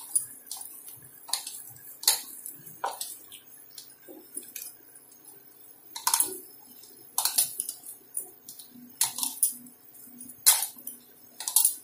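Boiled potato being mashed and squeezed by hand in a plastic bowl, with the bangles on the working wrist clinking in short, irregular jingles about once a second.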